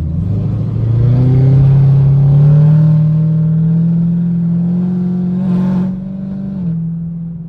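Supercharged V8 of a Chevrolet Camaro ZL1 accelerating hard. The engine note climbs steadily for about three seconds, holds high, then eases and drops in pitch near the end.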